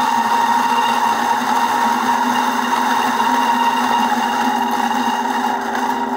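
Kopi Deva battery-powered flat-burr coffee grinder running at low speed, grinding beans through its Mazzer Super Jolly burrs: a steady motor whine over a grinding hiss.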